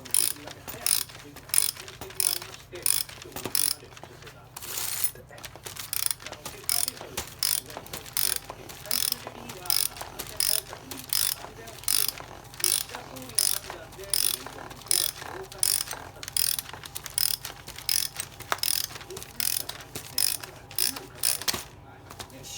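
Ratchet wrench clicking in quick repeated strokes, about two to three a second, while working a fastener during disassembly of a Suzuki Jimny JB23 manual transmission; the clicking stops shortly before the end.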